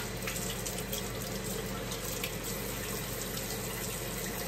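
Kitchen faucet running in a steady stream into the sink while vegetables are rinsed under it, with a few faint ticks of handling.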